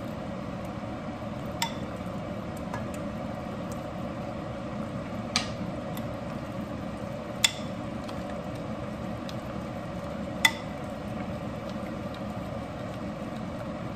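Metal spoon stirring flour and broth into a thin slurry in a small glass bowl, clinking sharply against the glass four times, over a steady low background noise.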